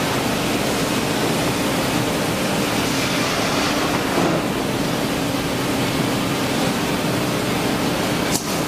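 Steady rushing noise of industrial machinery running, with a faint steady hum beneath it and a brief break near the end.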